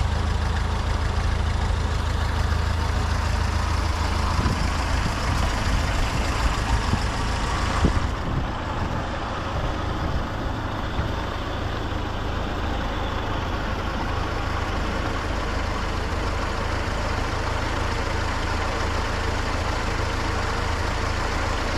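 The 1932 Ford Model B's four-cylinder engine idles steadily as it warms up on a cold day. A high hiss over the engine stops suddenly about eight seconds in.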